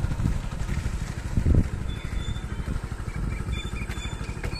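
A small motorcycle engine running steadily at low speed, its firing pulses low and even, with a brief louder burst about a second and a half in.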